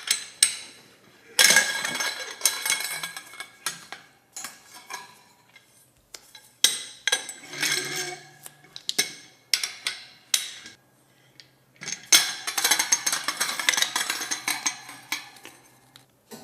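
Metal wire-shelving poles and parts knocking and clinking together during assembly: a run of sharp strikes and rattling clusters, each with brief metallic ringing.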